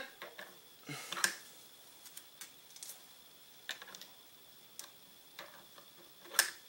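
Rounds being loaded one at a time into the cylinder of a Rossi Circuit Judge revolver rifle: light, irregular clicks and taps, the sharpest one near the end.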